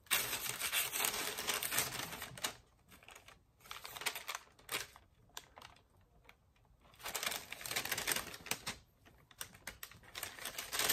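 Close handling noise from hands working a gingerbread house and its small candy figures: rustling and light clicking taps in spurts, busiest at the start and again from about two thirds of the way in, with a sparser, quieter stretch in the middle.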